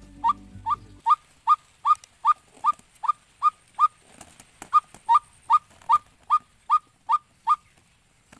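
Breath-blown bird lure call for hunting doves, sounded as a quick run of short, slightly rising hoots, about two and a half a second, with a brief break midway before it stops near the end. The caller is a beginner who cannot yet control his breath.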